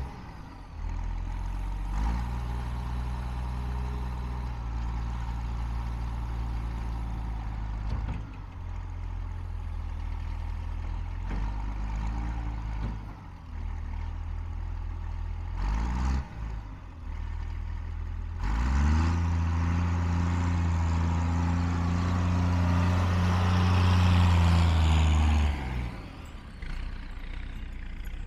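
John Deere 544A wheel loader's diesel engine running, its speed dipping and picking up again several times. Near the end it is held at high revs for about seven seconds, then drops back down.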